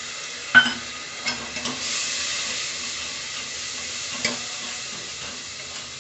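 Spiced onion-and-tomato masala sizzling in hot mustard oil in a pressure cooker pan while a spoon stirs it. The spoon knocks against the pot four times, the sharpest knock about half a second in, and the sizzle swells after about two seconds.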